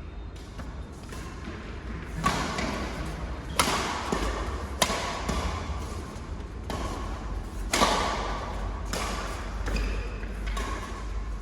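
Badminton doubles rally: racket strings striking the shuttlecock in sharp cracks, one every second or so, starting about two seconds in, over a low steady hum.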